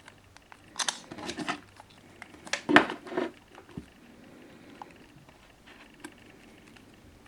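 Handling noise: two short spells of scuffing and rustling, about a second in and about three seconds in, the second the louder, with a few scattered small clicks and no ringtone.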